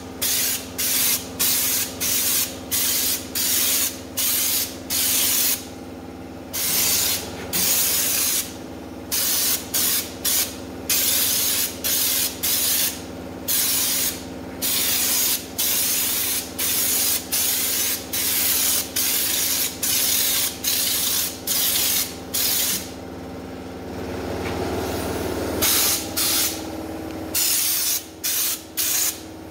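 Stone guard coating being sprayed onto a car's underbody in short hissing bursts, about one a second, with a few longer pauses between them. A steady low hum runs underneath.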